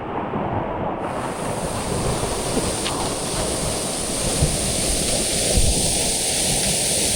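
Waterfall's steady rush of falling water, with wind on the microphone; about a second in, the hiss brightens.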